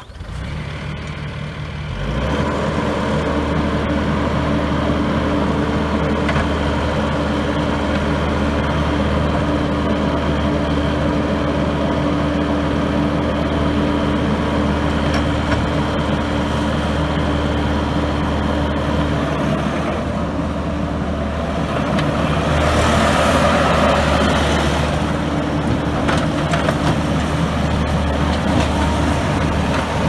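Kubota SVL75-2 compact track loader's 74 hp diesel engine, just started, throttled up about two seconds in and then running steadily. The lift arms are worked on the hydraulics, with a louder, rougher stretch for a few seconds about three-quarters of the way through.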